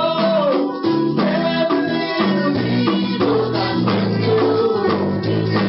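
Music with a steady beat and held melodic notes.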